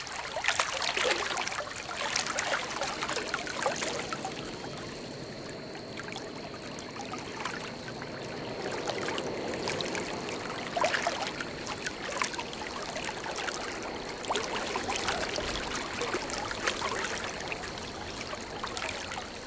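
Shallow river water running and trickling over a riffle, with small splashes here and there.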